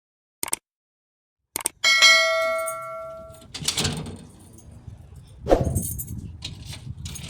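A single bell-like ding, several steady tones ringing together and fading out over about a second and a half, followed by a couple of dull knocks.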